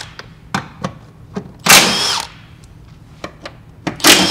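Cordless impact wrench loosening bolts: two short bursts of about half a second each, one about a second and a half in and one near the end, with a few small clicks between.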